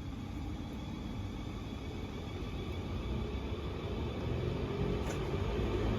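Class 444 electric multiple unit pulling out of the station: a low rumble that grows steadily louder, with a faint rising motor whine joining in after about four seconds as the train gathers speed. A single faint click comes about five seconds in.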